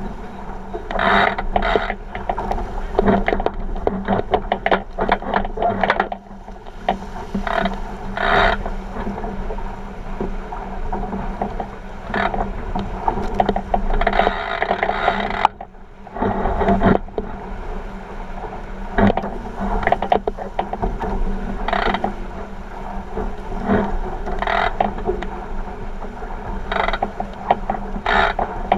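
A 49er skiff sailing fast: water rushing and splashing along the hull, with frequent short knocks and rattles from the boat's fittings.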